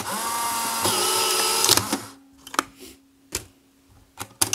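Polaroid 636 Closeup camera's film-ejection motor whirring for about two seconds, rising in pitch as it spins up, then a few sharp clicks. Near the end a click comes and the motor starts whirring again. The camera is ejecting normally with I-Type film loaded in a 600 cartridge.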